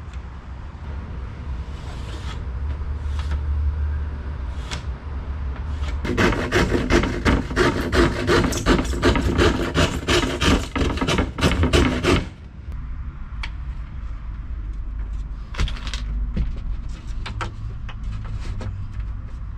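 Hand saw cutting through a thin plywood panel in quick back-and-forth strokes for about six seconds, starting about six seconds in and stopping suddenly. A few knocks from handling the board come before and after, over a low rumble.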